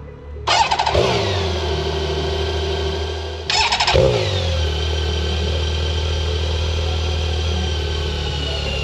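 BMW K1600 GTL's inline six-cylinder engine through an Akrapovic exhaust, firing up with a sudden burst about half a second in and settling into a steady idle, then doing the same again about three and a half seconds in.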